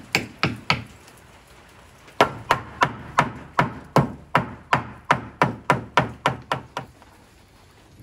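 Hammer striking wood: a few blows, a short pause, then a steady run of about four blows a second that stops about seven seconds in.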